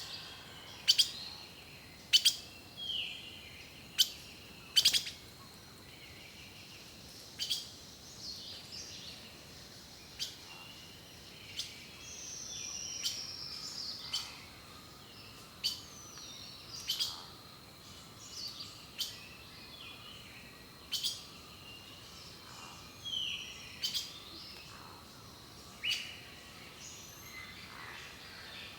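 Several wild birds singing and calling: frequent sharp, very short chip notes about every second or two, mixed with brief chirps and short whistles, one of them falling in pitch about halfway through.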